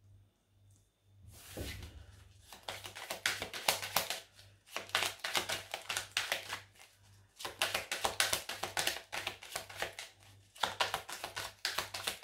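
Oracle cards being shuffled by hand: rapid clicking and flapping in three long runs, the first starting just over a second in, with short pauses between.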